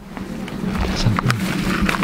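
Footsteps and the rustling and crackling of ferns and undergrowth as a person pushes through dense vegetation, growing louder about halfway through.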